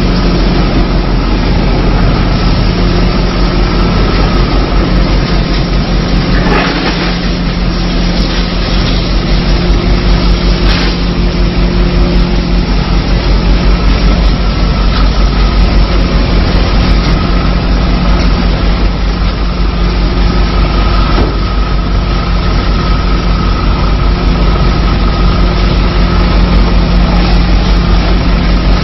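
Sawdust pallet making machine running with a loud, steady hum and drone, broken by two brief, sharper noises in the first half.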